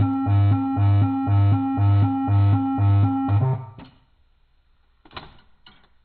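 Alert Works EAR-10 weather alert radio's siren, an electronic alarm alternating between two pitches about twice a second, slowed down so it sounds deep. It cuts off about three and a half seconds in, followed by a few faint clicks.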